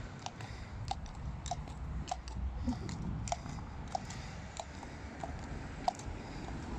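A feathered cob's hooves clip-clopping on tarmac at a walk, a sharp click about every 0.6 s, over a steady low rumble of wind on the microphone.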